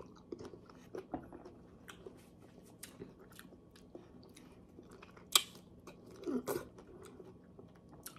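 A person chewing fresh pineapple up close, with wet mouth clicks and smacks scattered throughout. A single sharp click stands out about five seconds in, followed by a short louder burst of chewing.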